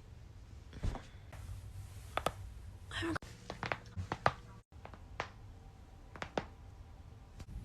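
Neck joints cracking: a series of sharp pops and clicks with short gaps between them, several coming in quick succession around the middle.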